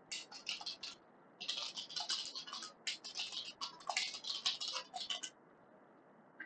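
Typing on a computer keyboard: quick runs of key clicks, a short burst at the start, then a longer run of about four seconds that stops near the end.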